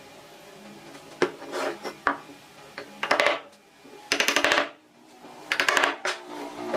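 Sharp clicks and three short bursts of rapid rattling ticks, like hard parts or hand tools knocking together.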